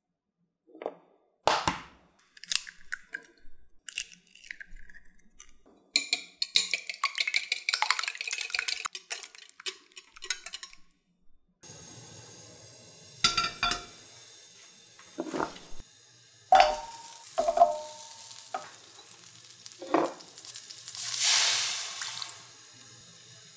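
Knocks and a quick run of clicking and rattling, then the steady low hiss of a lit gas stove burner. A stainless steel pan is set on the grate with metallic clanks, a couple of them ringing, and near the end water is poured into the pan with a splashing gush.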